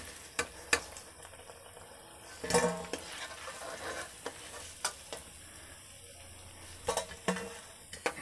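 Onion vadas deep-frying in hot oil in an aluminium kadai, sizzling steadily. Several sharp clicks of metal tongs and a slotted skimmer against the pan as the fried vadas are lifted out onto a steel plate, the loudest a short clatter about two and a half seconds in.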